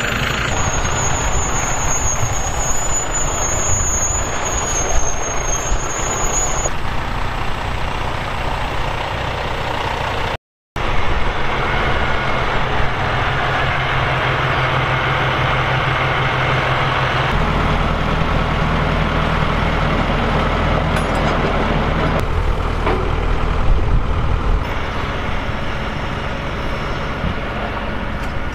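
Kenworth T880 semi truck's diesel engine idling steadily. A thin high whine sounds over it for the first six or seven seconds, the sound drops out for a split second about ten seconds in, and the idle turns deeper and heavier from about seventeen seconds in.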